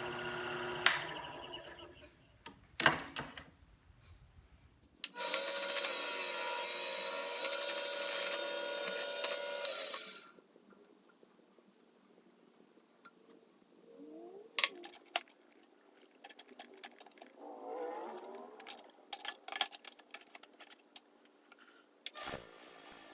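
Workshop tool work on a small metal part: a power tool runs steadily for about five seconds near the middle, with scattered clicks and knocks of handwork before and after it.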